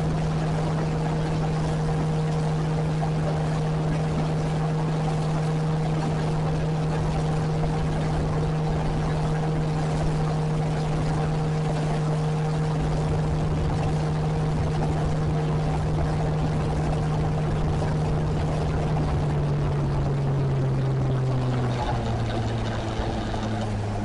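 Johnson 9.5 hp two-cylinder two-stroke outboard running steadily at high speed with the jon boat planed out, over a steady rush of water. Near the end the engine's pitch drops as it is throttled back.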